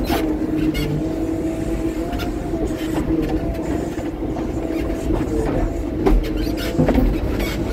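Front end loader's diesel engine running steadily, heard inside the cab, with a steady whine and scattered knocks and rattles.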